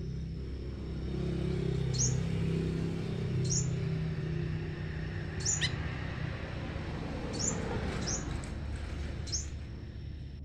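Small songbirds giving short, sharp, high chirps every second or so, one note about halfway through sliding down in pitch, over a steady low hum.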